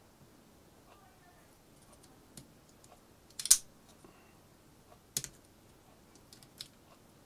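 Sharp plastic clicks and snaps from a Polar RC3 GPS watch and its strap as the strap is worked onto the watch body. There are a few scattered clicks: the loudest about three and a half seconds in, another a little after five seconds, and smaller ones around them.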